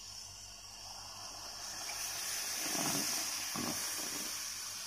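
Conti steam iron hissing as it lets out steam and spits water from its soleplate, the hiss swelling to its loudest about three seconds in, with a few short low sputters around then.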